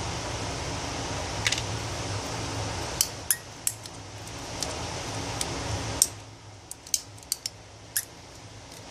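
Small metal parts of a Cobra 9mm derringer clicking and tapping as it is handled after reassembly: about a dozen sharp, irregular clicks from about three seconds in, the loudest about six seconds in. A steady hiss lies under the first part and drops off at that loudest click.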